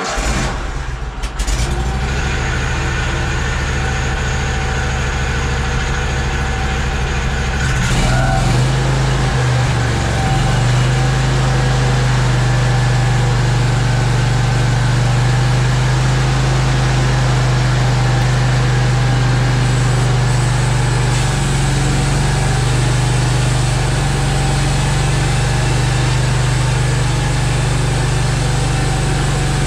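Gasoline engine of a portable bandsaw sawmill starting up and running steadily. It picks up speed about eight seconds in. This is a test run after its carburetor was torn down and cleaned because the engine had been running poorly.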